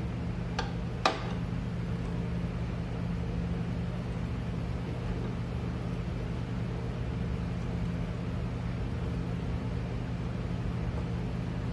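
Steady low machine hum with several constant low tones, and two sharp metallic clicks about a second in as the steel tube and saw vise clamp are handled.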